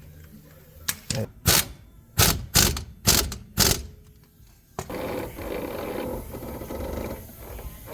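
Impact wrench run in about seven short bursts, snugging the hub assembly's mounting bolts a little at a time.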